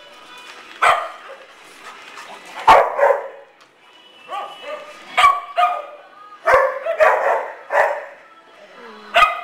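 Dogs at play barking: about eight sharp barks spaced a second or so apart, some in quick pairs, the loudest about three seconds in.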